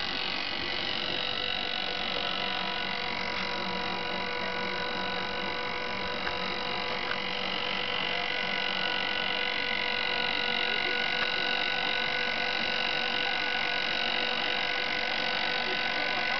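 Small electric winch motor running steadily under load as it reels in its cable and drags a rock, a continuous even whining hum. There are a couple of faint ticks midway.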